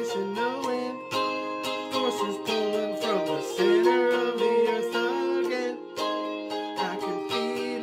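Electric guitar with a Stratocaster-style solid body, strummed and picked in a chord pattern. The struck notes ring on into one another.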